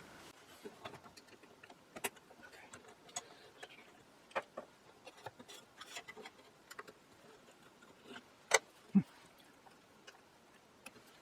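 Light scattered clicks and taps of wood and metal parts of a 1920s battery radio receiver being handled, with two sharper knocks about eight and a half and nine seconds in, the second with a short low thud.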